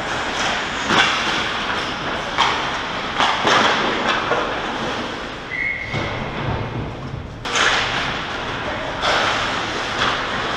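Ice hockey play: steady rink noise with several sharp scrapes and knocks from skates cutting into the ice and sticks and puck striking near the net, and a brief high tone about halfway through.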